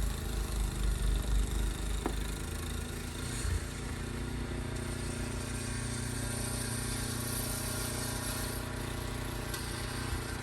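An engine running steadily, with uneven low rumbling from wind on the microphone for the first few seconds.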